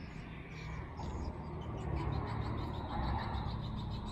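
Faint outdoor ambience: a low steady rumble with quick, faint chirping high above it.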